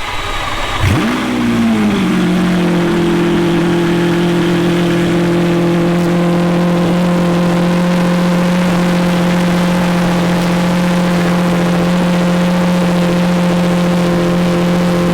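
A car engine starting: about a second in it catches, flares up in pitch, then drops back and settles into a steady, fast idle.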